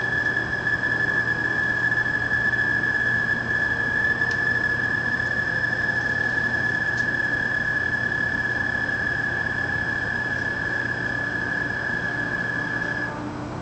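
A frog calling at night: one unbroken, high-pitched whistle-like tone held at a steady pitch for about thirteen seconds, stopping shortly before the end.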